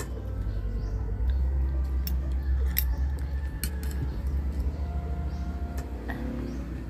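Fork and spoon clinking and scraping against a plate while eating, several short sharp clicks, over a steady low rumble.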